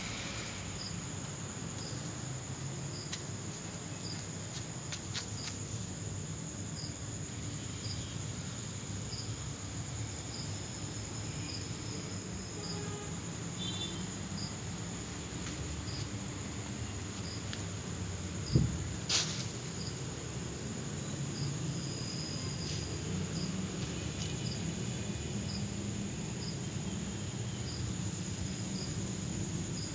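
Crickets chirping: a steady high trill, with a separate short chirp repeating about once a second, over a low steady hum. About two-thirds of the way through come a sharp knock and a click, the loudest sounds.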